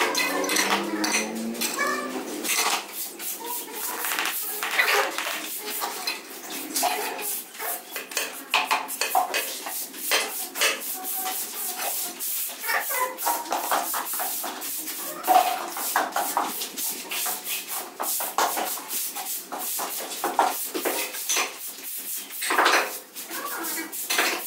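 Irregular clinking and scraping of hand tools working a wet cement floor screed, with many short sharp clicks coming in uneven runs.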